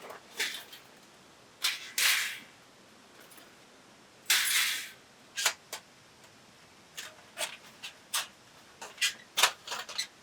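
A string of short, irregular clicks and knocks, with two longer rustling or scraping noises, one about two seconds in and one in the middle.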